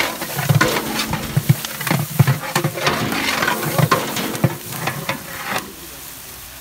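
A long metal ladle scraping and knocking against a large metal cooking pot, stirring red masala that is sizzling in hot oil. The strokes stop a little before the end, leaving a quieter steady sizzle.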